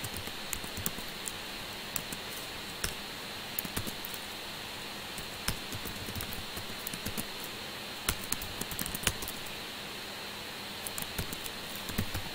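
Computer keyboard being typed on: irregular keystrokes, some in quick runs and some single, over a steady background hiss.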